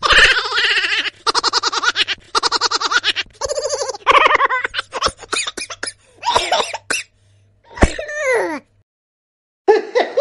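Comedic meme laugh sound effects played one after another. First comes rapid, pulsing laughter in short cut-up bursts, then a laugh whose pitch slides downward. After a brief gap, another laugh starts near the end.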